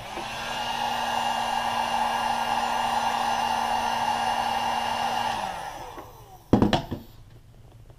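A 1500-watt heat gun blows steadily with a fan whine. About five seconds in it is switched off, and the whine falls away as the fan spins down. A couple of sharp knocks follow.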